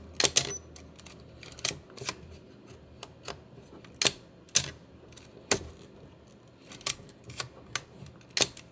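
Nikon EM 35mm SLR being fired and wound on over and over: its shutter releasing and its film advance lever ratcheting, about ten sharp mechanical clicks, a quick cluster at the start and then one every half second to a second and a half.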